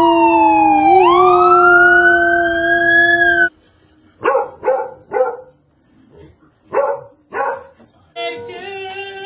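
A dog howling to a siren-like wail: a loud pitched sound that falls, then rises and holds for about three and a half seconds. After a short pause come short barks in two groups, three and then two.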